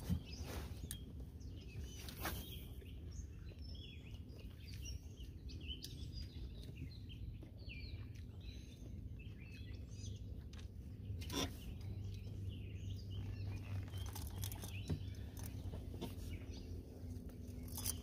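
Many short bird chirps, scattered throughout, over a steady low hum, with a few soft clicks.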